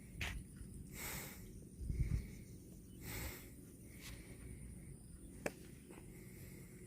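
A cow breathing out in two breathy snorts about two seconds apart, with a soft low thud between them and a single sharp click later.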